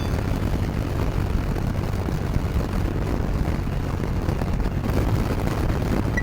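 Motorcycle riding at steady speed: a constant rush of wind and road noise over a low engine drone.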